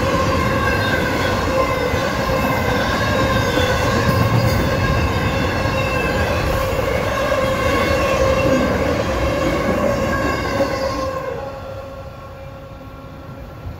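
CSX double-stack intermodal freight cars rolling past close by: a steady heavy rumble with a wavering high squeal from the wheels. It all drops away sharply about eleven seconds in.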